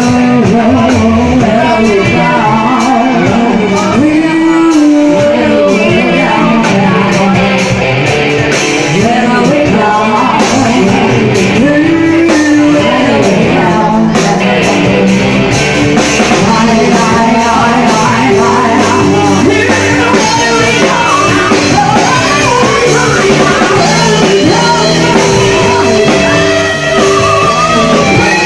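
Live rock band playing loud: a drum kit with steady, frequent hits, electric guitar, and a woman singing.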